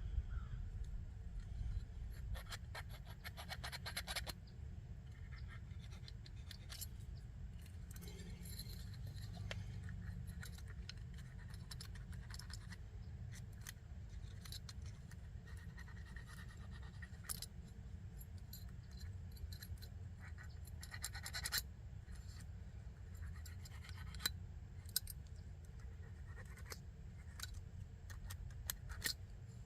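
Intermittent scratching and scraping of a small cleaning tool working on forced-air heater parts, with scattered small clicks and handling knocks over a steady low hum.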